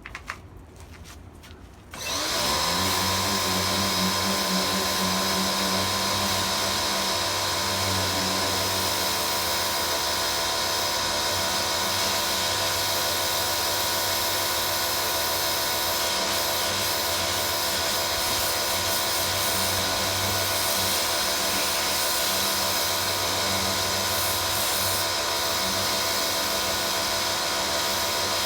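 An electric-motor machine switched on about two seconds in, spinning up fast and then running steadily with a constant whine and hiss.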